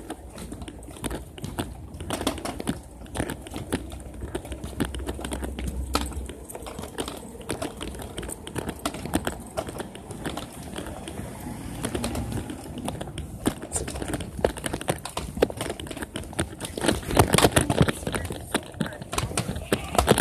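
Footsteps of several people walking on a concrete sidewalk: a dense, irregular run of quick taps, with a low rumble about five seconds in.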